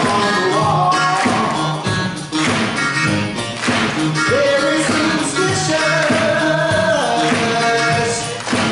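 Live band and a male singer performing a Motown-style song, with a steady beat and long held sung notes in the second half.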